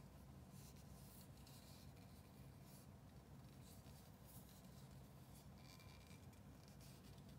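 Near silence with a low steady hum and faint, intermittent scratchy rubbing: handling noise as a hand grips and turns a chef's knife.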